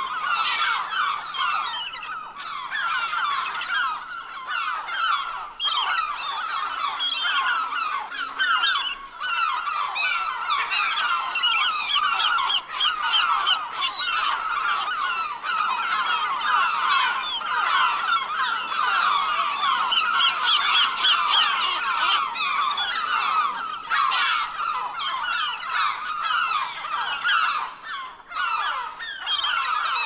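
A flock of gulls calling all at once: many short, overlapping cries in a dense, unbroken chorus.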